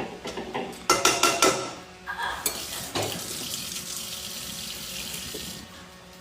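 Dishes clattering sharply for about a second, then a kitchen tap running with a steady hiss for about three seconds before it is shut off.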